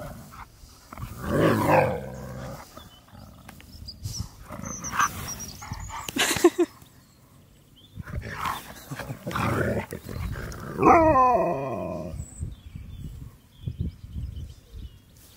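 Huskies vocalizing at each other in play: a series of drawn-out, bending 'talking' calls and grumbles. The loudest come about a second in and near eleven seconds in, the latter sliding down in pitch.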